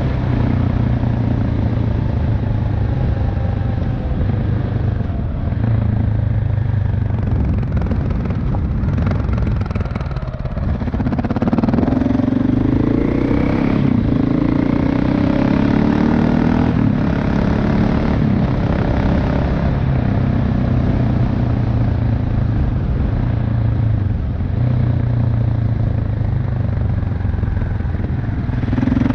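KTM 690 Enduro R's single-cylinder engine and exhaust running under way, heard onboard. The engine note falls away about ten seconds in, then climbs again as the bike picks up speed.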